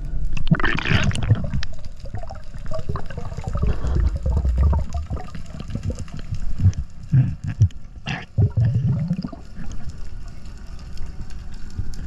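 Scuba diver breathing through a regulator underwater: a hiss of inhaling near the start, then gurgling, bubbling exhalations, with rising bubble sounds about eight seconds in.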